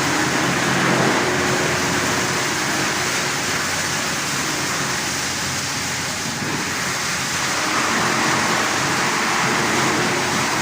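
150 kW stump chipper (wood crusher) running: a steady, dense mechanical noise over a faint low hum.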